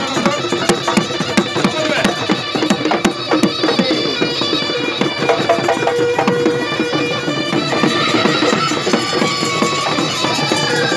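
Live Assamese Bihu music: dhol drums beaten in a fast, dense rhythm under a pepa, the buffalo-horn pipe, playing a held, reedy melody that grows stronger in the second half.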